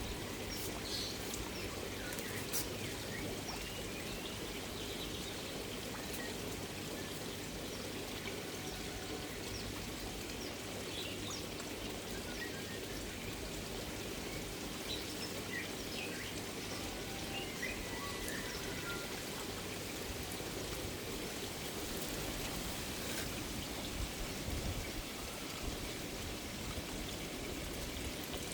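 Koi pond water pouring and trickling steadily, with many small scattered drips and splashes at the surface where koi are feeding.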